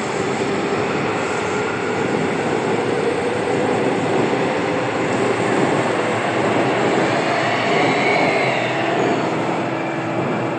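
Seoul Subway Line 3 new-type train with Dawonsys IGBT traction inverters accelerating out of an underground station, heard through platform screen doors: a steady rumble of wheels on rail with a whine that climbs in pitch and then falls away about eight seconds in, as the last car goes by.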